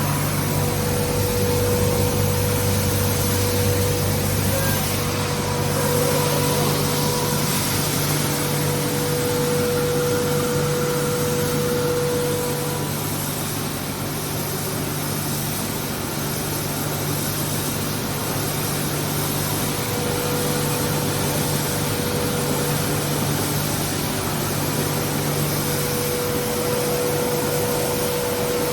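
Stone grain mill machine running steadily, a constant machine hum over a noisy hiss. A higher steady tone drops out for several seconds midway and then returns.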